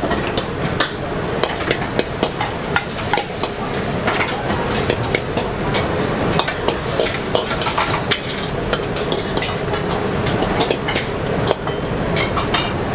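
Pad thai noodles sizzling in a hot wok while a metal spatula stirs and scrapes them against the wok, with frequent sharp clicks of the spatula on the metal.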